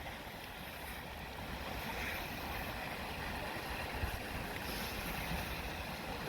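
Steady outdoor background noise with wind rumbling on the microphone and a faint knock about four seconds in.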